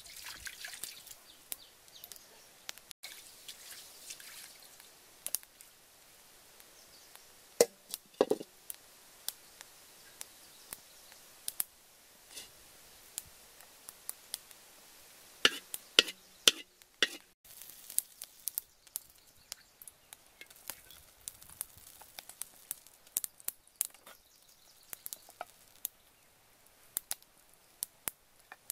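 Wood fire in a clay stove crackling with scattered sharp pops, with a few louder knocks and clatters around 8 seconds and again around 16 seconds in as a metal wok is set on the stove.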